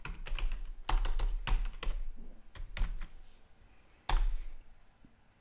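Computer keyboard being typed on: a quick, irregular run of key clicks, then one louder key strike about four seconds in.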